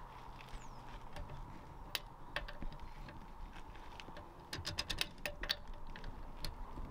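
Sharp, irregular clicks of a socket wrench on a car's wheel bolts as they are undone to take the wheel off, with a quick run of clicks about two-thirds of the way through.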